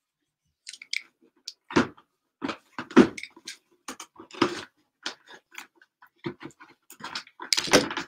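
Hands working at the tough factory seal of a cardboard mini-helmet box: a run of irregular crackles, scrapes and knocks as the wrap and box are handled and picked at, with a few louder thumps against the cardboard.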